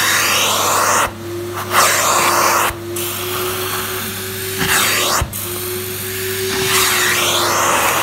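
Hot-water carpet extraction wand drawn across carpet in strokes: a loud suction hiss over a steady machine hum and whine, with the hiss dropping out briefly three times between strokes.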